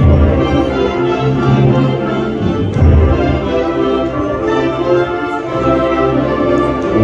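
A school wind band and string orchestra playing together: clarinets, trumpets and bowed strings hold full sustained chords, with a loud low swell about three seconds in.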